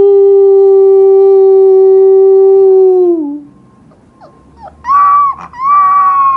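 A long, steady, low howl that sags and dies away about three seconds in. After a short pause come two shorter, higher howls from a husky puppy.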